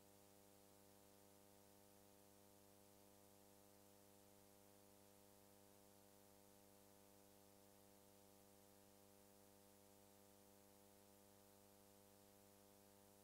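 Near silence: only a faint steady electrical hum with hiss.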